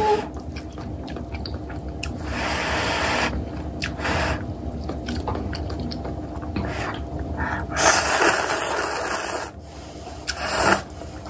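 Instant ramyeon noodles slurped into the mouth in long, noisy draws: one about two seconds in, a louder one near eight seconds, and a short one near the end, with softer mouth sounds between.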